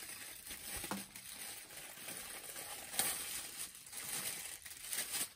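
Thin plastic bag crinkling and rustling in an irregular crackle as it is handled and pulled off a kettle's power base.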